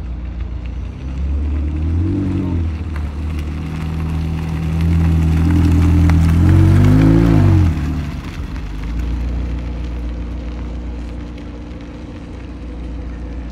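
McLaren 720S twin-turbo V8 supercar pulling away at low speed. The engine note swells and falls as it is blipped twice, about two seconds in and again as it passes closest, about seven seconds in, then settles to a steadier, quieter run as the car drives off.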